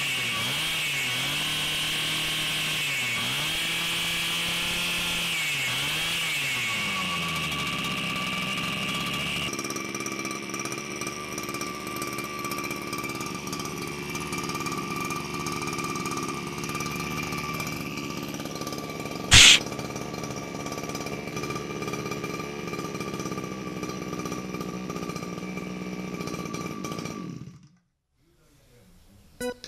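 Bebit T40B two-stroke water-cooled model-boat engine running on a test run after repair: its speed rises and falls a few times, then it holds a steady fast run. One sharp knock comes about two-thirds of the way through, and near the end the engine stops abruptly.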